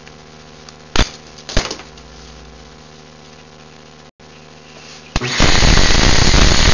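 Two sharp clicks, then about five seconds in the condo-sized central vacuum motor, switched on from its 24-volt inlet valve switch, starts up and runs loudly with a rushing noise and a steady high whine.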